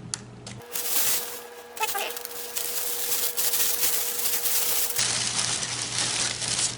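Packaging being handled: rustling and crinkling with small clicks as a model freight car is unwrapped, for about four seconds starting just under a second in.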